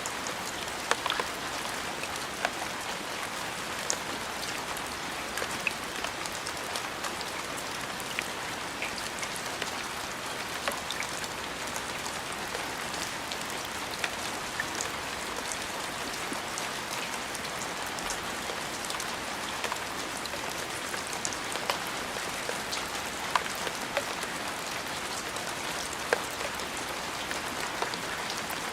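Steady rain falling on a surface: an even hiss scattered with sharp individual drop ticks.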